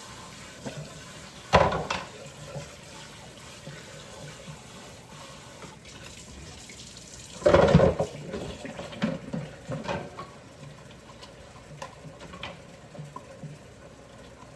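Kitchen tap running into a sink while dishes are washed by hand. There are two louder clatters, one shortly after the start and one about halfway through, and lighter clinks in between.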